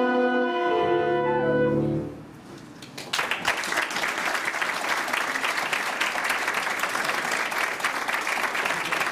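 A brass ensemble of trumpets, tuba and saxophone with keyboard holds a final chord that ends about two seconds in. After a brief lull, the audience breaks into applause.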